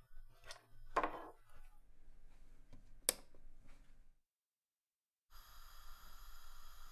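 A few soft knocks and rustles in a small room, then one sharp click about three seconds in, followed by a second of dead silence. A steady ambient synthesizer drone begins near the end.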